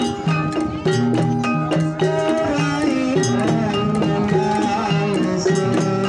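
Traditional Javanese ensemble music: wooden-keyed xylophones struck with mallets in a steady, busy rhythm, with a gliding melodic line above them.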